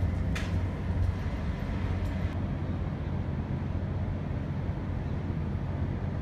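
City street sound around a QLine streetcar standing at a stop: a steady low rumble of traffic and vehicle running noise, with a short hiss about half a second in and a fainter one near two seconds.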